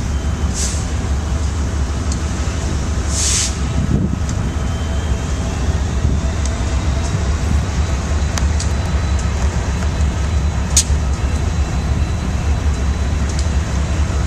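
Diesel freight locomotives led by a Union Pacific unit approaching slowly, their engines running with a steady low rumble. Two short hisses come in the first few seconds.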